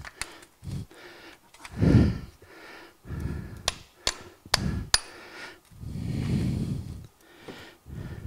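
Four quick metal hammer strikes about half a second apart on a steel driver, knocking a worn bearing out of a Dixie Chopper mower-deck spindle housing. The last strike rings briefly. Heavy breaths of exertion come before and after the blows.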